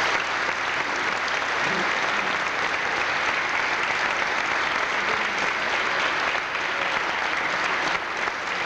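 Audience clapping steadily, a dense crowd applause.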